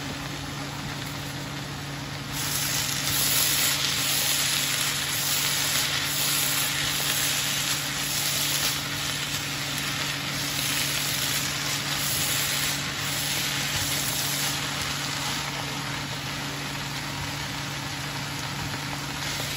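Shredded bamboo shoots sizzling as they stir-fry in a hot nonstick pan while a wooden spatula stirs them. The sizzle gets louder about two seconds in and stays steady over a low hum.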